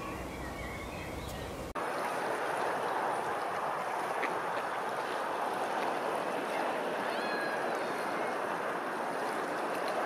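A steady rush of open water, with a few faint short bird chirps about seven seconds in. It starts abruptly after a quieter first couple of seconds of faint birdsong.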